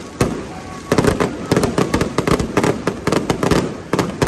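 Aerial fireworks bursting overhead: a few scattered bangs, then from about a second in a dense run of rapid cracks and bangs.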